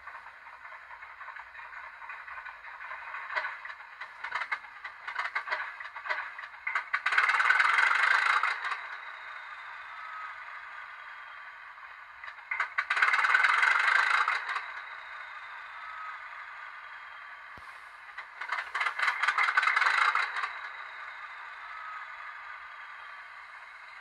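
A sound-fitted N gauge diesel locomotive model standing still, with a steady engine-idle sound coming from its small speaker. A run of clatter comes first, then three loud hissing bursts of about two seconds each, spaced about six seconds apart.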